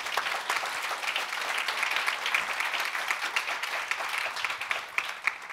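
Audience applauding: a roomful of people clapping, thinning out near the end.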